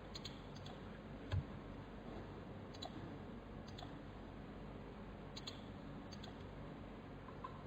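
Computer mouse clicking, a few faint scattered clicks, with one louder low thump about a second and a half in, over a steady faint hiss.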